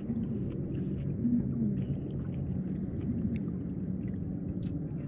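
Motorboat engine droning low and steady, its pitch rising and falling slightly a few times, with a few faint clicks over it.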